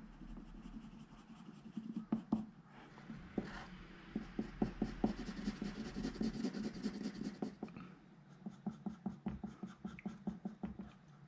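Colored pencil shading on paper: quick, scratchy back-and-forth strokes in runs, with a short lull about eight seconds in.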